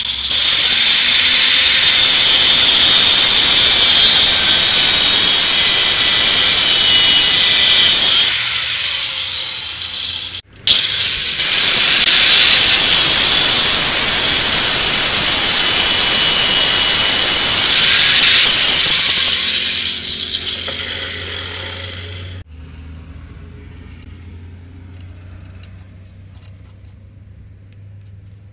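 Angle grinder with a thin cutting disc cutting into steel clamped in a bench vise, very loud and shrill. It makes two long cuts with a brief stop in between. The noise fades out and stops abruptly about two-thirds of the way through, leaving only a faint low hum.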